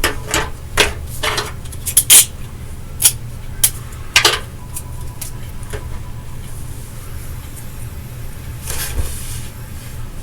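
A quick, uneven run of sharp clicks and light knocks, about nine in the first four and a half seconds, the loudest a double knock about two seconds in. After that only a steady low hum remains.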